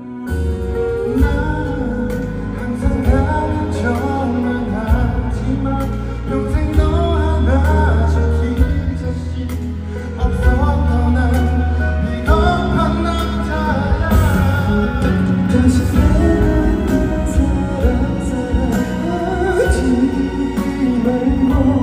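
Male vocalist singing a Korean pop ballad live into a microphone over a backing track with a heavy, sustained bass line.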